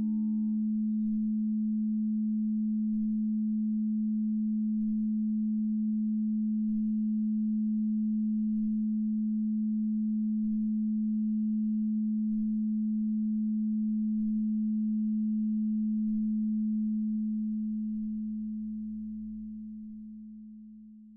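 Audio feedback drone: a single steady low tone, its faint upper overtones dying away in the first second or two. It fades out over the last few seconds.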